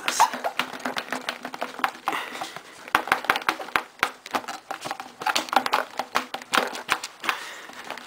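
Irregular light clicks, taps and knocks, several a second, with short lulls: hand tools and parts being handled while an ATV is taken apart.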